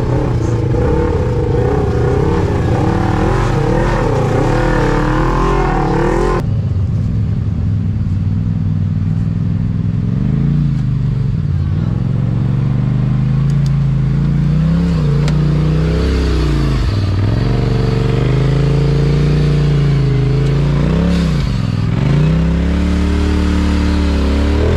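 Side-by-side UTV engines running and revving in repeated throttle bursts, the pitch dipping and climbing again and again, as the machines crawl up a rutted dirt trail. The sound changes abruptly about six seconds in.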